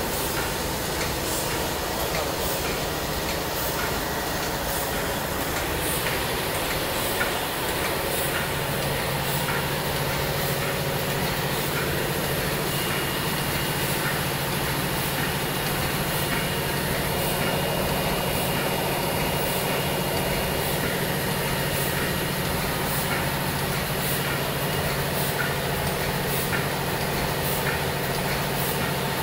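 NF-80 automatic plastic tube filling and sealing machine running: a steady mechanical hum with regular light clicks as its rotary table indexes the tubes. The low hum grows stronger about eight seconds in.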